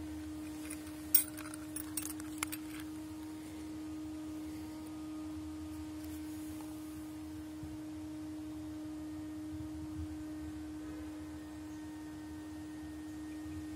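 A steady, pure low tone holding one pitch throughout, with a few sharp clicks between about one and two and a half seconds in, the first the loudest.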